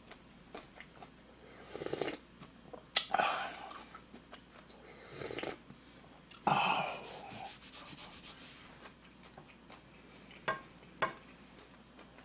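A person blowing on, and slurping from, a wooden ladle of steaming-hot ramen broth, in about four short breathy bursts. Two small sharp mouth clicks come near the end.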